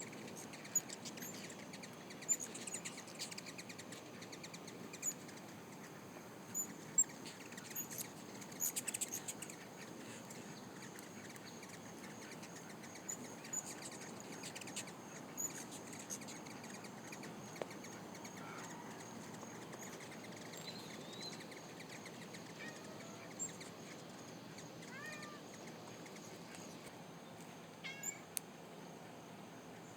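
Hummingbirds chirping around feeders: many sharp, high chips, busiest in the first ten seconds, with a few short sliding calls later on.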